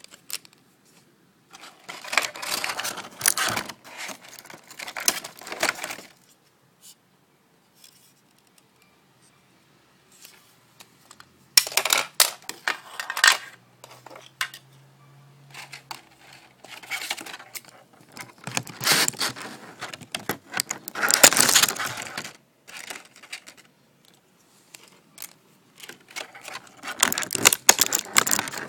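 Small hard plastic toy pieces clicking and clattering as they are handled, in several bursts of a few seconds with quiet gaps between.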